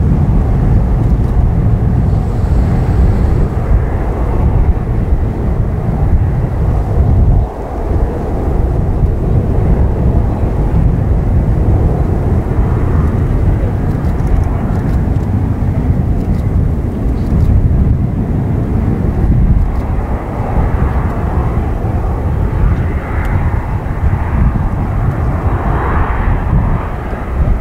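Boeing 747-400M's four General Electric CF6-80C2 turbofans at takeoff thrust: a loud, heavy low rumble as the airliner lifts off and climbs away. From about twenty seconds in, a higher edge grows in the noise.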